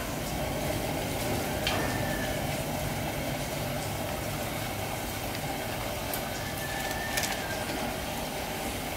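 Steady rumbling noise of a pot of water boiling on a gas burner, with a couple of faint clicks about two seconds in and again about seven seconds in.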